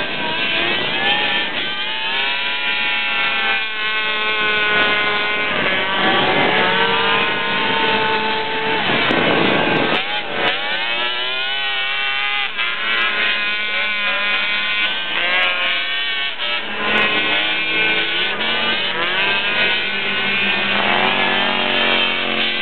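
Several Attex 6x6 ATVs racing together, their small engines revving up and down in overlapping tones. About ten seconds in, a group of them rises in pitch together as they accelerate.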